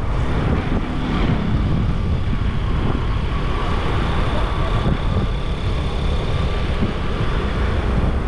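Street traffic heard from a moving bicycle: a steady low rumble of vehicle engines and wind on the microphone.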